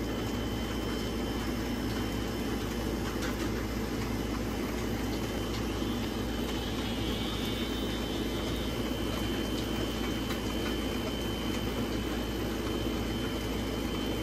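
Burger patties sizzling on a grill grate: a steady, unchanging noise with faint crackle.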